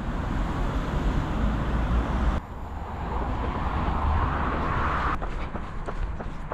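Road traffic on a busy dual carriageway: a steady rush of tyres and engines with a deep rumble, changing abruptly about two seconds in and swelling as vehicles pass close. About five seconds in it cuts off suddenly, leaving a runner's footsteps on a path.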